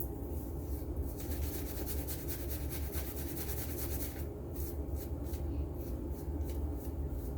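Synthetic shaving brush scrubbing soap lather onto the face: rapid bristly rubbing strokes, close together at first and slower, more separate strokes from about four seconds in.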